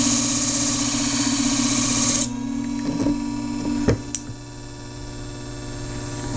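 Flat-hone shear sharpening machine running, with a Fromm shear blade held in a clamp and grinding against the spinning disc: a steady motor hum under a hissing grind. About two seconds in, the grinding stops as the blade is lifted off the disc, leaving the motor humming alone, with a few light clicks from the clamp and shears being handled.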